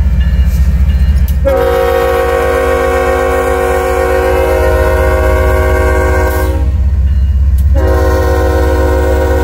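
Kansas City Southern diesel locomotive's air horn sounding: one long blast beginning about one and a half seconds in, a brief break, then another blast near the end. Under it, the steady low rumble of the locomotive and train.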